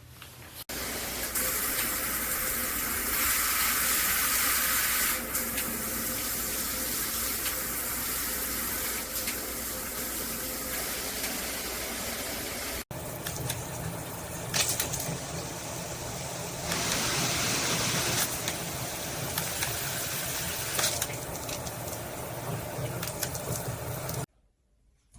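Water spraying from a handheld shower head, a steady rushing hiss that starts about a second in, cuts out for an instant about halfway, then goes on and stops abruptly near the end.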